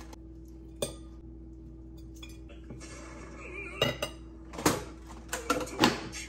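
Metal kitchen tongs and a plastic food container clinking and knocking against a ceramic bowl, a few separate clacks, most of them in the second half.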